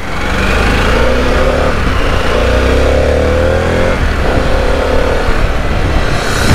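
Harley-Davidson Pan America's V-twin engine accelerating under the rider, its pitch rising three times with drops about two and four seconds in as it shifts up through the gears. Wind rushes over the helmet-camera microphone.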